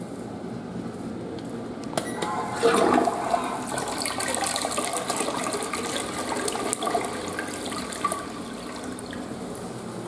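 Western-style flush toilet flushing: a click about two seconds in, then water rushing and swirling through the bowl, loudest just after the start and easing off over the last few seconds.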